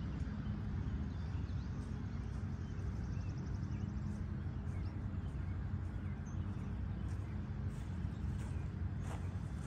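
Steady low outdoor rumble, with small birds chirping faintly and now and then.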